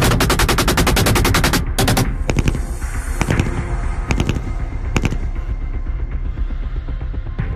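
Automatic rifle fire: one long rapid burst lasting about a second and a half, then a couple of shots, then two short bursts about four and five seconds in, over background music.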